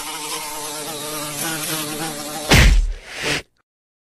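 Mini quadcopter drone's propellers giving a steady, insect-like buzz, then a loud thump about two and a half seconds in and a second shorter noise before the sound cuts off.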